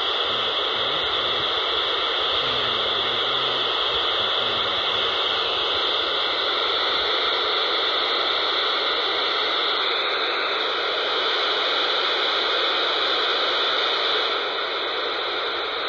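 Handheld scanner receiving 29.800 MHz FM, giving a steady rushing hiss of radio static with no voice.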